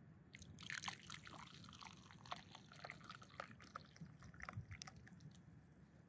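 Liquid being poured into a cup: a faint patter of small splashes and drips lasting about four seconds, busiest near the start.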